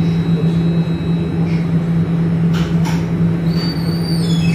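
Inside an Alstom Citadis tram on the move: a steady electrical hum over a low running rumble, with two light knocks about two and a half seconds in. Near the end a high thin whine steps down in pitch.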